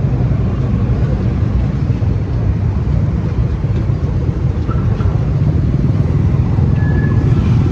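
Motorcycle engine running steadily while under way, with a heavy low rumble of wind on the microphone.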